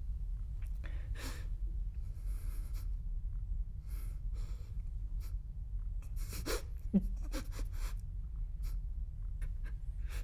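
A young man crying quietly: sniffs and shaky breaths scattered through, with a short whimpering sob about seven seconds in, over a steady low hum.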